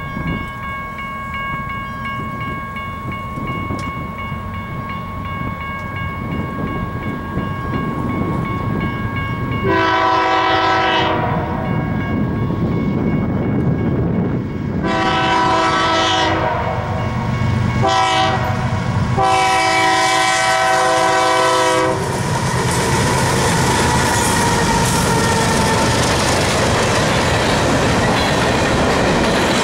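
Grade-crossing bell ringing steadily. About ten seconds in, a freight locomotive's air horn sounds the crossing signal: long, long, short, long. From about twenty-two seconds in, the two GE diesel locomotives pass, followed by covered hopper cars rumbling and clattering over the rails.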